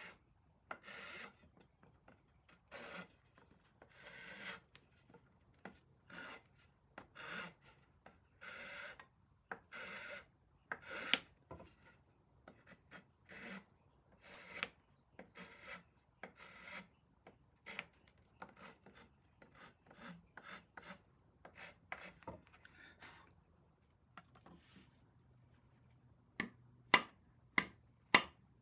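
A hand tool worked on wood in short scraping strokes, a little over one a second, while a wooden joint is being fitted by hand. Near the end comes a quick run of about five sharp taps, about two a second, louder than the strokes.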